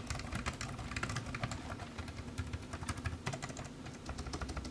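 Typing on a budget CSL Bluetooth keyboard with plastic keys: a quick, uneven run of soft key clicks, quite quiet.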